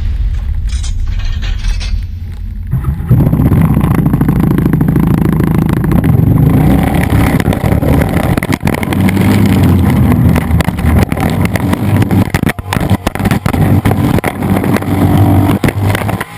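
ATV engine running, heard muffled from inside its rear storage trunk, with many knocks and rattles as the camera is jostled. It gets louder about three seconds in.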